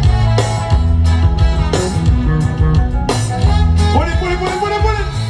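Live band playing through a PA system during a sound check: a heavy bass line with drum strikes about every second and a half, and guitar above.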